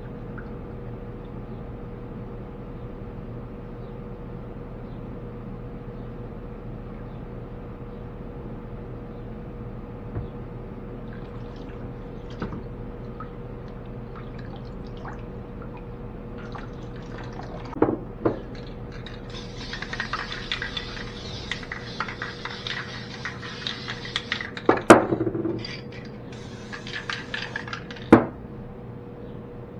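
Water splashing and dripping in a hydro-dip tank as a synthetic rifle stock is worked through it, in the second half, with a few sharp knocks. A steady low hum runs underneath.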